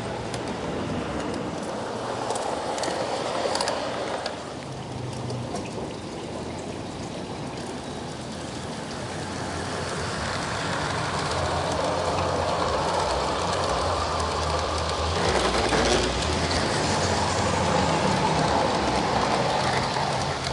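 G-scale model trains rolling along garden railway track: a steady rumble of wheels on rail with light clicking and a low motor hum, growing louder during the second half as the trains run close by.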